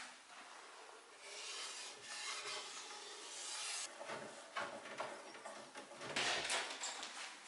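Scraping and rubbing of a screwdriver on the old wooden cabinet's door-hinge screws as they are worked loose, in several stretches of a second or two, loudest near the end.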